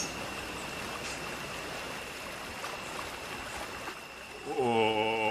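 Steady rushing of water, a cartoon water sound effect as a sea serpent swims and tows a small boat. Near the end a low, held note with overtones comes in over it.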